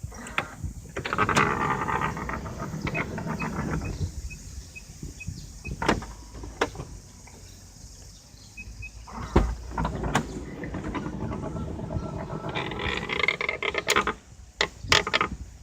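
A car's sliding door sliding along its track twice, once early and once near the end, with sharp clunks of the door and latch in between and at the end. A row of short, evenly spaced high beeps sounds in the middle.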